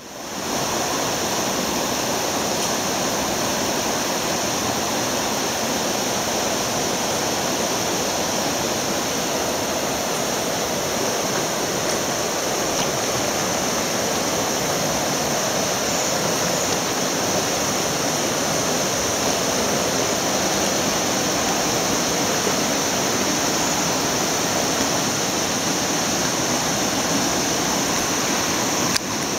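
Rushing river water running steadily over a shallow riffle, fading in at the start.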